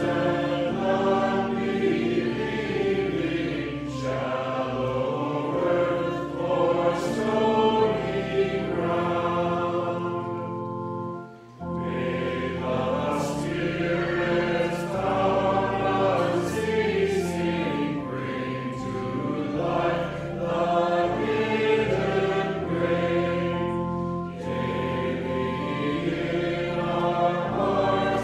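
A hymn sung by many voices together, with sustained accompaniment, and a short break between phrases about eleven seconds in.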